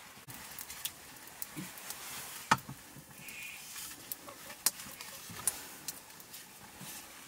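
Open wood fire under a cooking pot crackling, with scattered sharp pops and clicks. The loudest comes about two and a half seconds in, with two more in the second half.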